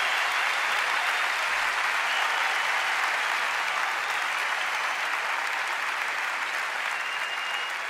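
Audience applauding steadily, a dense even clapping that slowly fades.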